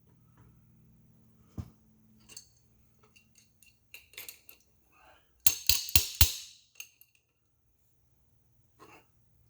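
Steel tooling on a metal lathe being handled and set: scattered small clicks, then a quick run of three or four sharp metallic clanks about six seconds in, over a faint low hum.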